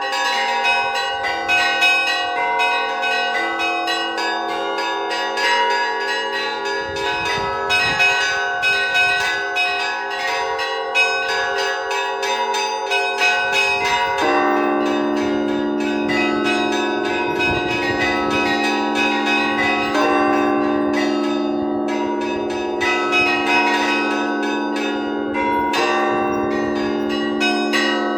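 Orthodox cathedral bells rung by a bell-ringer in an improvised peal: small bells struck in quick patterns over the slower strokes of larger bells, all ringing on into one another. About halfway through, the lower bells grow stronger.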